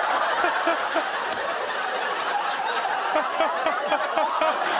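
Studio audience laughing, many voices at once, holding steady.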